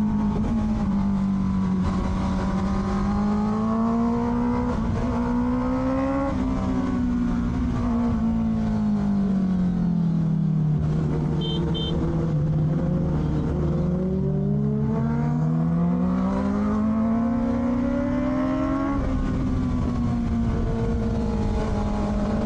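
Honda CBR650R inline-four with an Akrapovic exhaust, riding under throttle: the engine pitch climbs and drops with the road, jumping at gear changes about 6 s and 19 s in. Two short high beeps sound about midway.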